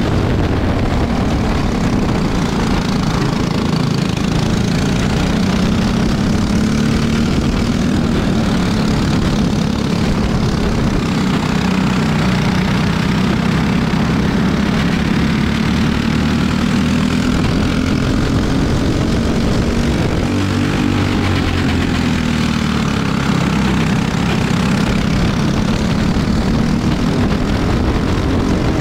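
Racing go-kart's single-cylinder four-stroke engine running hard under the onboard camera, its pitch rising and falling as the kart brakes into corners and accelerates out. Near the middle it drops away and then climbs back up, with wind and tyre noise underneath.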